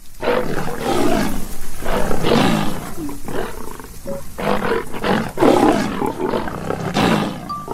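African lion (Panthera leo) roaring: a run of loud, rough roars coming one after another, about every second or so.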